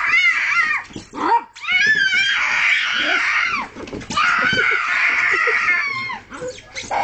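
A young child screaming in a wavering high-pitched cry, then two long, loud shrieks, excited by a dog climbing up the slide toward him.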